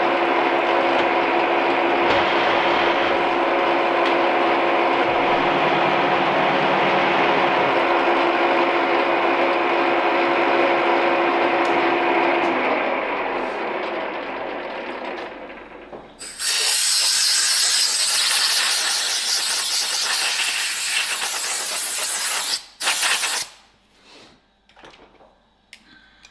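Reiden milling machine running with a steady gear whine while a Wohlhaupter boring head takes a test cut, then winding down and stopping. About four seconds later comes a long blast of compressed air, clearing chips off the part, followed by two short bursts.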